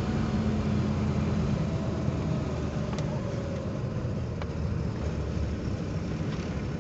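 A vehicle's engine running at low speed, heard from inside the cab during a slow turn, with two light clicks about three and four and a half seconds in.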